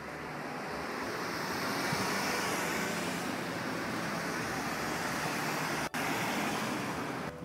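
Road traffic going past close by: a steady rush of car tyre and engine noise that swells up over the first couple of seconds and holds, with a momentary dropout about six seconds in.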